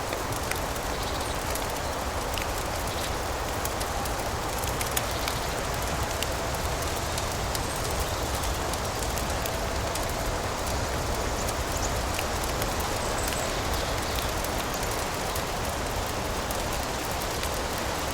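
Fireplace crackling, with scattered sharp pops over a steady hiss.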